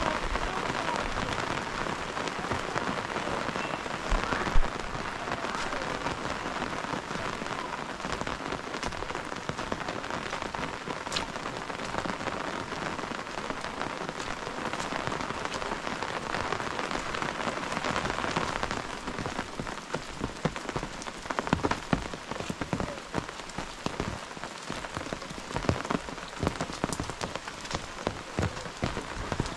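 Steady rain falling, with a single sharp knock about four and a half seconds in; in the second half the rain is a little quieter and separate drops tick more distinctly.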